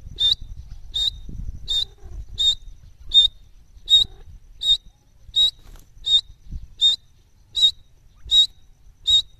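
Grey francolin calling: a short, sharp, high note repeated evenly about every three-quarters of a second, thirteen times.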